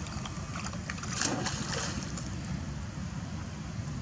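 Water splashing and lapping as monkeys swim and paddle in a shallow pond, with a brief louder splash just over a second in, over a steady low rumble.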